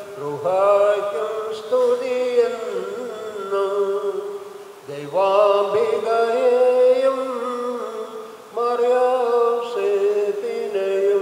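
Liturgical chanting: a voice sings three long, drawn-out phrases over a steady held tone that carries on underneath.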